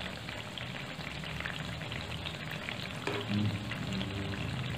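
Puva dumplings of wheat-flour batter deep-frying in hot oil, a steady sizzle, while a slotted spoon stirs and turns them over in the oil.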